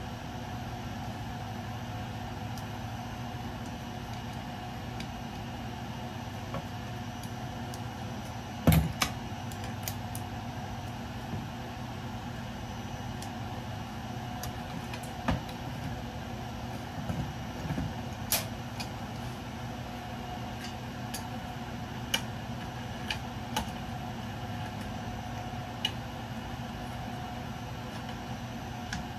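Scattered sharp clicks and knocks of scrap electrical parts being handled and taken apart, the loudest a knock with a low thud about a third of the way in. A steady mechanical hum runs underneath.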